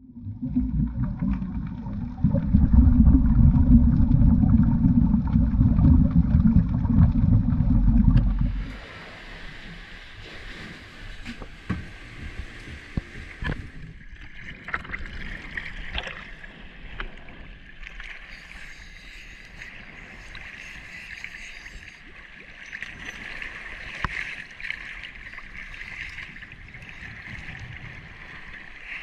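Muffled boat engine running low for the first eight seconds or so. It then gives way to water sloshing and lapping around a camera at the sea surface, with scattered small splashes.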